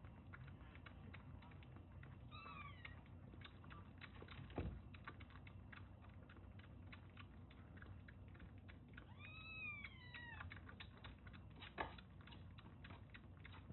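Kitten suckling at a milk bottle, rapid wet clicking of the tongue and lips on the nipple. Two kitten mews cut through it, a short one about two seconds in and a longer, rising-then-falling one around nine seconds. Two soft knocks sound near the middle and near the end.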